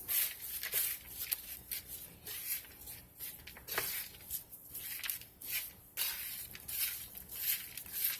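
Rolled oats being stirred and tossed in a mixing bowl, a run of uneven rustling, scraping strokes about once or twice a second.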